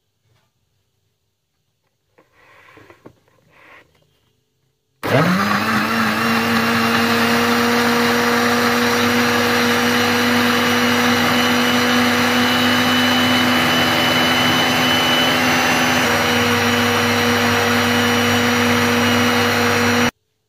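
Electric countertop blender motor switched on about five seconds in, spinning up quickly to a steady high-speed whir as it blends kiwi with milk, water and sugar. It runs for about fifteen seconds, then stops abruptly near the end. Faint handling noises come before it starts.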